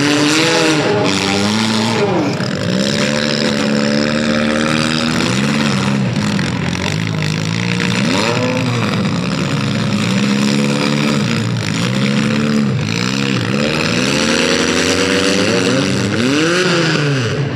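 Demolition derby cars' engines revving hard, several at once, their pitch climbing and dropping again and again as the drivers floor it and back off.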